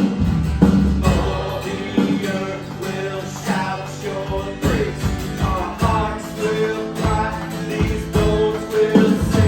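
Live worship band playing a song, with voices singing the melody over drums and steady bass and guitar chords.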